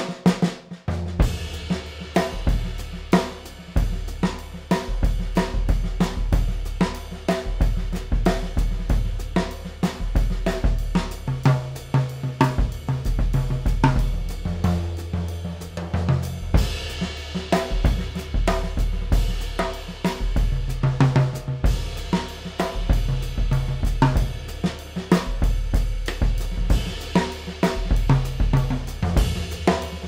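Drum kit with natural-skin heads played in a continuous groove at a higher tuning. A 1920s Jedson snare with a 0.3 mm calfskin batter and goatskin snare side, calfskin-headed toms and a goatskin-headed 22-inch bass drum damped by a felt strip play alongside hi-hat and cymbals.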